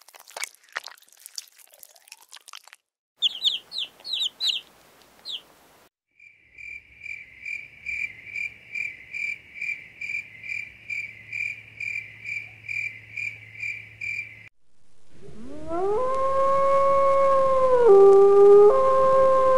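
A run of separate animal sounds. First crunchy chewing, then a few quick high chirps, then a high chirping call repeated about two or three times a second for around eight seconds. Near the end comes a long howl that slides up at the start and then holds, with a brief dip in pitch.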